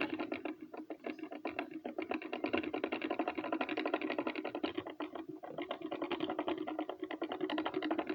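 Lego Technic gear train turned slowly: the plastic gears mesh with a rapid, continuous run of small clicks.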